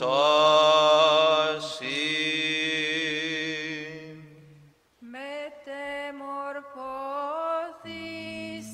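Greek Orthodox Byzantine chant sung unaccompanied. A long held note over a steady low drone (the ison) fades out about halfway through. After a brief pause a voice starts a new phrase that climbs in steps, and a lower drone joins under it near the end.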